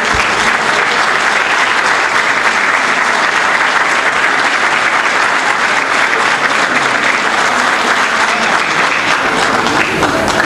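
Audience applauding steadily in a hall, a full round of clapping from many hands.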